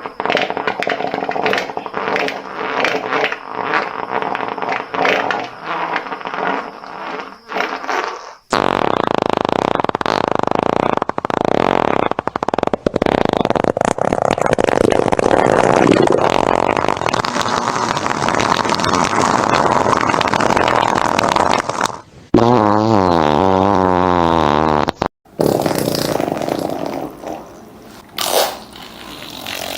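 A run of loud fart sounds, one after another. First comes a long, rapid, rippling one. Then a long raspy one of about thirteen seconds, then a short one whose pitch wavers up and down, and near the end a rougher one.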